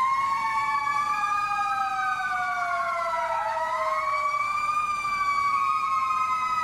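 Siren wailing, several pitches gliding slowly up and down and crossing one another.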